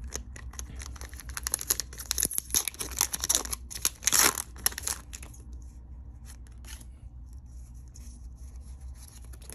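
Foil wrapper of a Pokémon TCG booster pack crinkling and crackling as it is opened and the cards are worked out. A dense run of crackles for about five seconds, loudest around four seconds in, is followed by a few light ticks.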